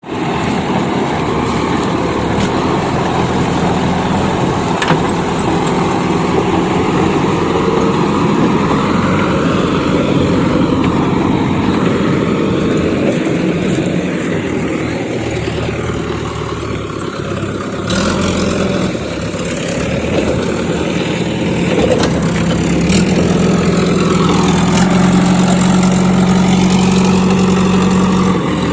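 Diesel engine of a JCB 3DX backhoe loader running at work, its note rising and falling as it changes speed, with a tractor engine running alongside. A few sharp knocks stand out.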